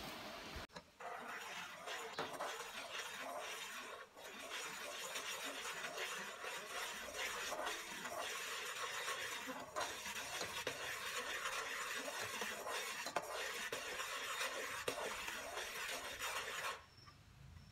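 Metal ladle stirring energy drink as it boils down to sugar syrup in an aluminium pot, scraping and clinking against the pot over the bubbling liquid. The stirring stops about a second before the end.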